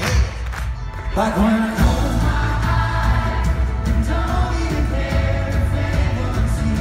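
A singer and his band playing live: a male voice singing over acoustic guitar, keyboards and drums. A new passage of held notes starts about a second in, with heavy bass coming in shortly after.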